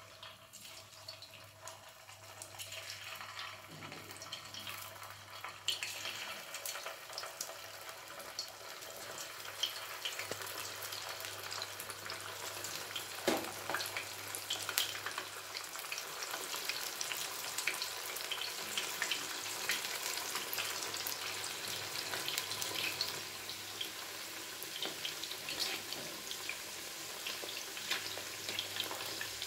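Batter-coated cauliflower florets deep-frying in hot oil in a stainless steel pan: a steady sizzle and crackle that builds as more pieces go in, with one sharp click about halfway through. Near the end a knife turns the florets in the bubbling oil.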